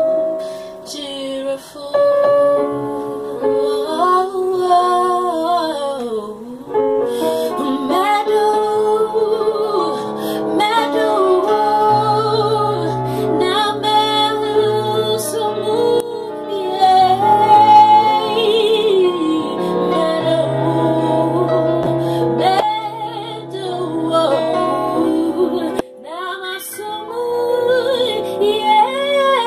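A woman singing neo-soul phrases with gliding runs and held notes, accompanied by keyboard chords; low bass notes join the keyboard about twelve seconds in.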